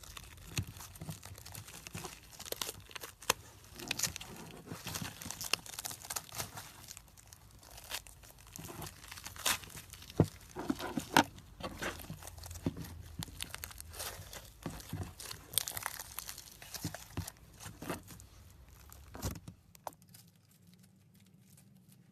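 Slime-filled stress ball being cut and pulled apart: a dense run of crackling, crinkling and tearing with scattered sharp snaps, loudest about halfway through, stopping about twenty seconds in.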